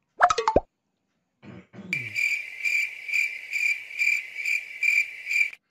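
Cricket chirping, a steady high chirp pulsing a little over twice a second, that starts about two seconds in and cuts off abruptly near the end, like an inserted 'crickets' sound effect. It is preceded by a brief sliding sound near the start.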